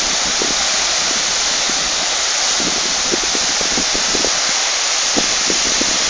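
Small waterfall pouring over rock ledges: a steady, loud rush of falling water.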